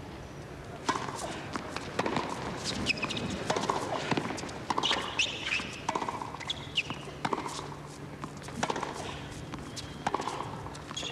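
Tennis rally on a hard court: a serve, then repeated sharp racket strikes on the ball and ball bounces, a few per second, over a low crowd murmur.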